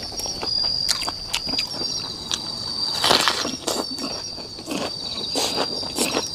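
Crickets trilling steadily in the background while someone chews crunchy food close to a clip-on microphone, with irregular sharp clicks and crunches and a denser crunch about three seconds in.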